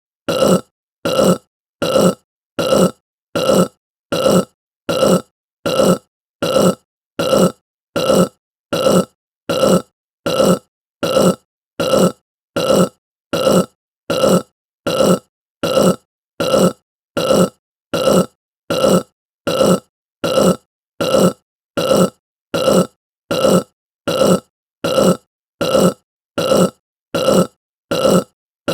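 A short human burp repeated over and over at an even pace, about one and a half a second, with silence between each.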